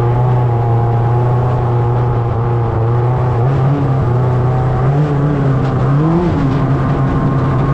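Toyota 5K four-cylinder engine running with a loud, aggressive exhaust note, its pitch rising briefly in a few short throttle blips partway through.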